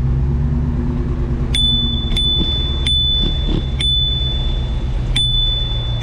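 A bicycle bell rung five times, starting about a second and a half in, each ding ringing on at one high pitch. A low car engine hum runs underneath during the first couple of seconds.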